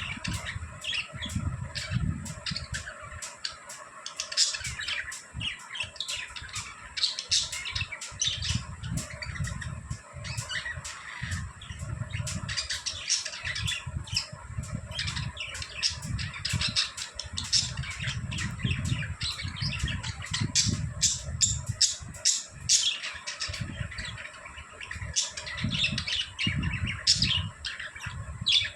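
Budgerigars chirping and chattering without pause: a dense run of short, quick calls and squawks, with irregular low rumbling bumps underneath.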